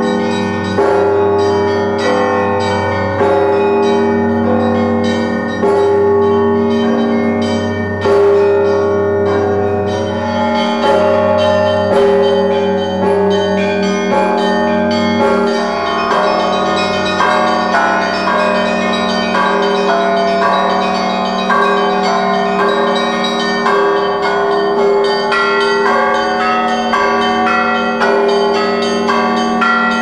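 Russian Orthodox church bells rung by a bell ringer pulling the clapper ropes of stationary bells: a deep bass bell struck every two to three seconds under a quicker pattern of smaller bells, all ringing on without a break. About halfway through the deep bell drops back while the smaller bells keep ringing.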